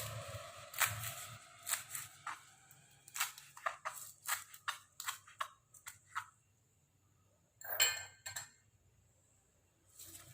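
Betel leaves being cut into small pieces: a series of sharp cutting clicks, sparse at first, then about three a second, a pause, and a short quick flurry near the end.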